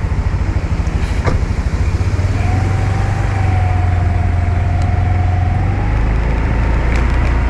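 Honda Vision scooter being ridden: a steady low rumble of the engine and wind on the microphone, with a faint wavering whine in the middle.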